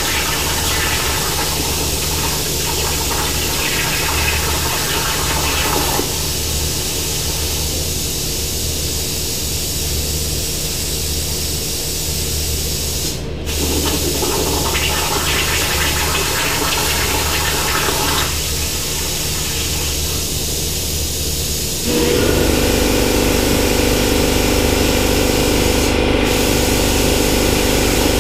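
Hypertherm 65 plasma torch on a CNC plasma table cutting steel sheet: a steady hiss of the cutting arc and its air jet over a low hum, briefly dipping about halfway through. About three-quarters of the way in, a louder steady machine hum starts suddenly.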